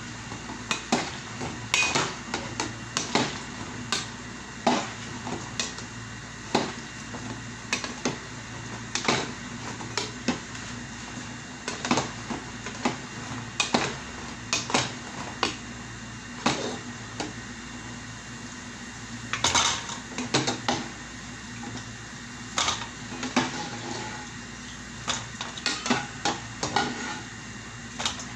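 Metal slotted spoon clinking and scraping against a cooking pan as food is stirred and turned in hot oil, in irregular knocks about once a second over a steady background hiss.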